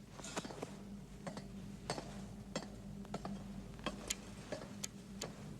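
Optical soundtrack of a 35mm film print between lines of dialogue: a steady low hum with a run of sharp ticks about every two-thirds of a second.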